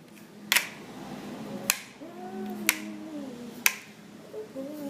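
Freshly sharpened kitchen knife chopping potatoes on a cutting board: single sharp chops roughly once a second.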